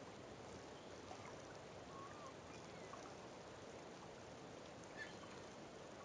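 Faint, steady outdoor shore ambience with a few faint, short bird chirps, about two seconds in and again near five seconds.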